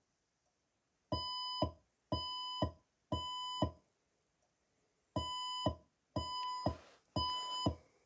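Fire alarm evacuation tone in the temporal-three pattern, played back as a sound effect: three electronic beeps of about half a second each, a pause, then three more. This is the standard fire evacuation signal.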